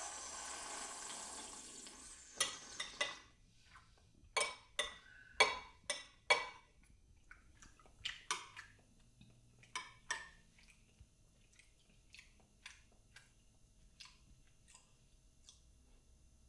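Metal spoon clinking against a ceramic soup plate while soup is eaten: a quick run of clinks a few seconds in, then scattered single clinks.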